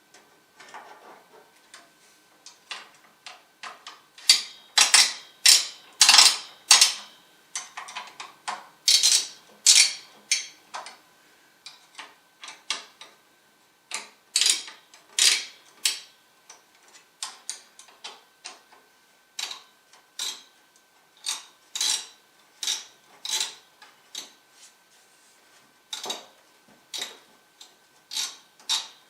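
A long series of irregular sharp clicks and light clacks, one or two a second, over a faint steady high tone.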